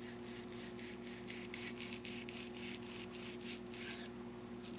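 Kitchen knife sawing back and forth through a slab of cooked meat, making a run of quick, faint scraping strokes, several a second, over a steady low hum.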